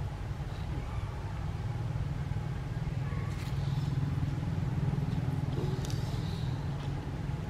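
A steady low engine rumble, like a nearby vehicle running, that swells slightly around the middle, with a few faint light ticks over it.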